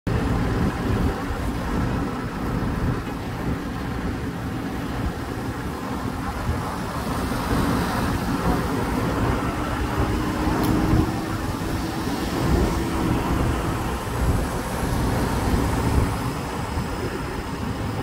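Steady low rumble of engines and road traffic, with a faint hum that comes in around the middle and fades out.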